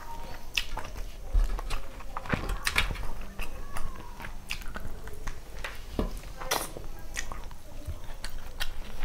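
Close-up chewing and wet mouth smacking of someone eating rice mixed with curry by hand, with irregular sharp clicks and smacks, and fingers squishing and mixing the food on a steel plate between mouthfuls.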